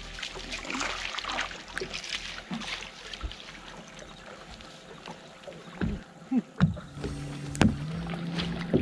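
Water slapping against a bass boat's hull, with wind on the microphone. A few sharp knocks come a little past the middle, and a steady low hum starts about seven seconds in.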